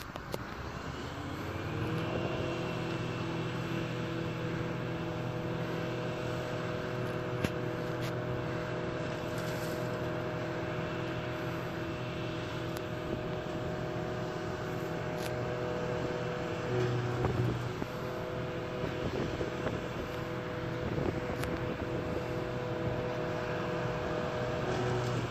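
Claas Jaguar 870 self-propelled forage harvester chopping grass from a swath. Its engine and chopper rise in pitch over the first couple of seconds, then run at a steady hum with a high whine. The tractor pulling the silage trailer alongside runs with it.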